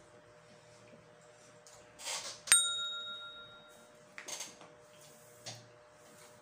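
A single bright ding: something struck once, about two and a half seconds in, ringing out for about a second right after a brief rustle. Softer rustles and a small click follow.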